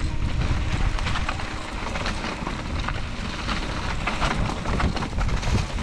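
Canyon Lux mountain bike riding down a dirt trail: tyres rolling over loose ground, with many quick clicks and rattles from the bike, and wind buffeting the microphone.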